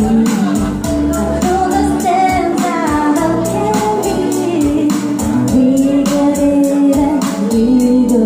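A woman singing live into a handheld microphone over a karaoke backing track with a steady beat, holding long, wavering notes.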